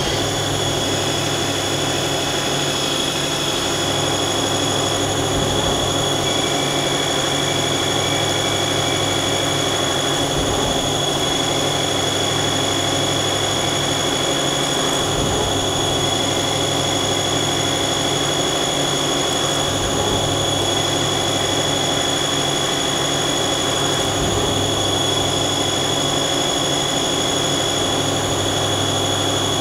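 Mazak CNC lathe running with its spindle at about 2,000 rpm while tool 2, a VBMT turning insert, profiles the bar's outside diameter. The sound is a steady high whine over even machine noise.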